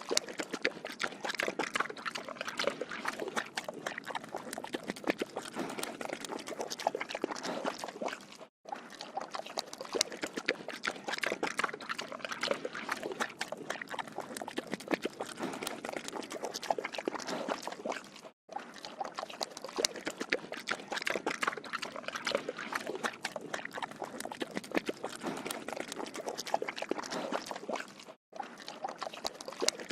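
A pig drinking water: a steady run of wet slurping with many small clicks. The recording repeats about every ten seconds, with a short gap at each repeat, three times.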